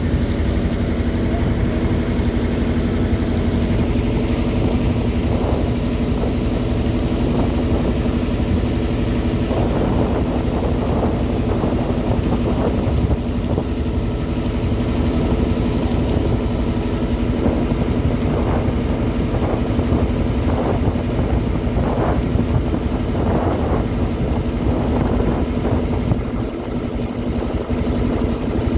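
A river boat's engine running steadily at an even pitch, with a constant low rumble.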